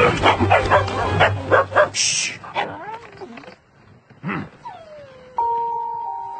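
A run of high, wavering yelps and whimpers for about two seconds, a short whoosh, a few more wavering cries, then a falling whistle about two-thirds through and held musical notes near the end.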